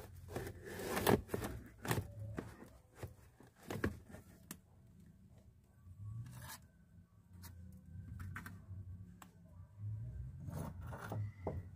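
Scattered scraping, rubbing and clicking noises, thickest in the first few seconds and again near the end, over a steady low hum.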